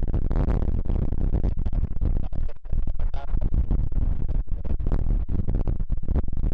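Strong wind buffeting the microphone in irregular gusts, over the low rumble of an Airbus A380's four jet engines as the airliner rolls out after a crosswind landing.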